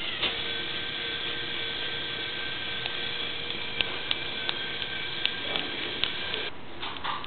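Toy roller coaster's small electric chain-lift motor running with a steady whine, with sharp irregular clicks from the mechanism; the whine cuts off about six and a half seconds in.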